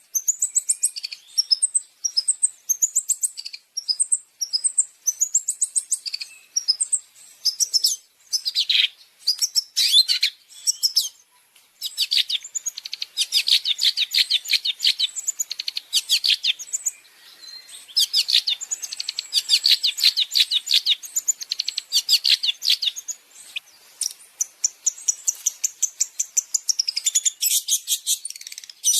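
Long-tailed shrike (cendet) singing: rapid chattering strings of sharp, high notes in bouts of a few seconds with short pauses between them.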